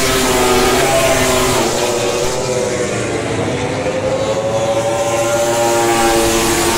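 Moto3 racing motorcycles' 250 cc single-cylinder engines at high revs as the bikes pass on the track, several engine notes rising and falling in pitch.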